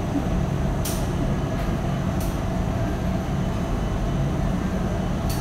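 Supermarket ambience: a steady low hum of the store with a few short sharp clicks or clatters, about a second in, again a second later, and once near the end.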